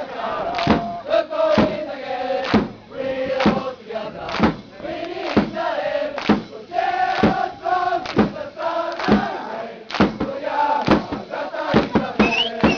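A football supporters' crowd singing a chant together in unison, with sharp beats about twice a second.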